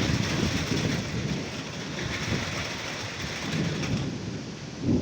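Steady hiss of heavy rain slanting in on the wind, with gusts of wind buffeting the microphone in uneven low rumbles.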